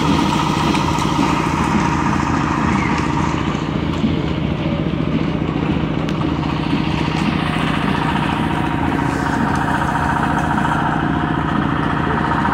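Small tractor's engine idling steadily close by, an even low hum that holds through the whole stretch.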